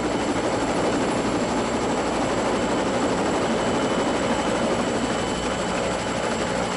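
A steady mechanical drone under a constant rushing hiss, unchanging throughout, with a faint low hum.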